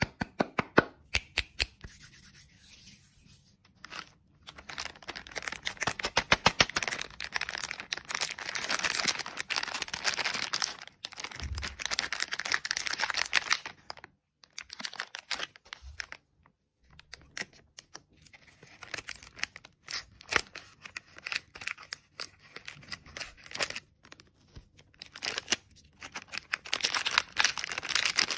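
Plastic candy packaging being handled and torn open: crinkling and tearing with many sharp clicks, in stretches broken by short pauses.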